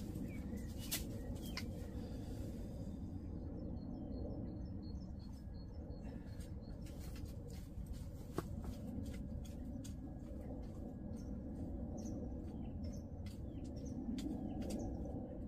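Metal garden rake dragged through loose, crumbly soil, its tines scraping with many small clicks as they catch clods and stones. A bird chirps several times about four seconds in.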